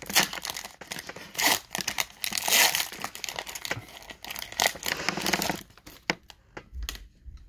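A trading-card pack wrapper being torn open by hand: crinkling, ripping rustles over several seconds, giving way to fainter clicks as the cards are handled near the end.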